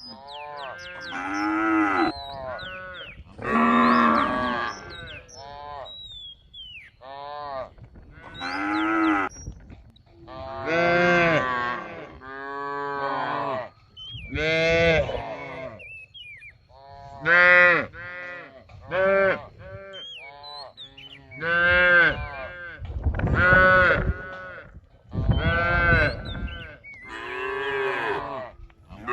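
Cattle mooing over and over: a run of about a dozen separate moos, each lasting about a second, coming a second or two apart.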